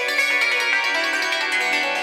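Yangqin (Chinese hammered dulcimer) played with rapid, closely spaced hammer strokes, the struck strings ringing on into one another.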